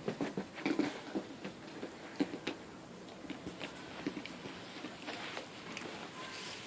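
A dog moving about after its thrown toy, making faint scattered clicks and taps, thicker in the first couple of seconds and sparser after.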